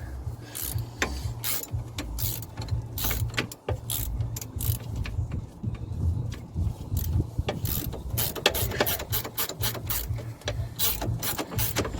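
Ratchet spanner clicking in quick, irregular runs as the nut on the lower control arm bolt is done back up.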